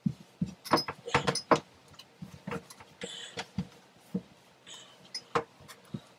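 Paper towel wiping and rubbing on an acrylic tub and its metal fixtures, with scattered small clicks and knocks and a couple of brief scrubbing sounds.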